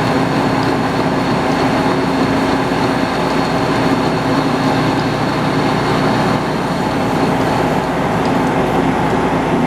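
Metal lathe running steadily with a constant hum, machining the fast collar of a sawmill mandrel.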